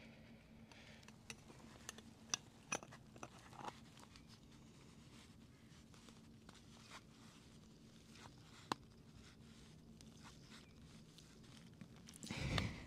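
Faint scattered clicks and small metallic ticks from a motorcycle fork cap being pressed down by hand against the fork spring's preload and turned to catch the threads of the fork tube. A short, louder rustling scrape comes near the end.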